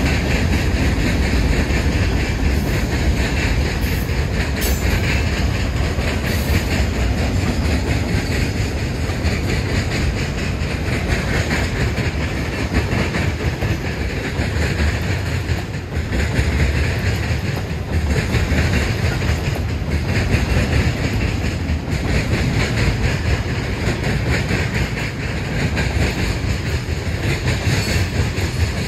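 CN freight train cars rolling past close by: a steady rumble of steel wheels on the rails with clickety-clack over the rail joints.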